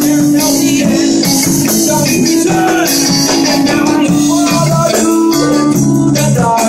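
Live band music, played loud: electric guitar, bass guitar and a drum kit with cymbals.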